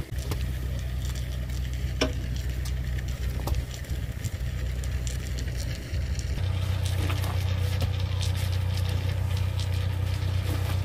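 Sugarcane juice boiling hard in a large open pan, a crackling sizzle of bursting bubbles as it is cooked down for sugar. A steady low hum runs underneath and grows stronger about six seconds in.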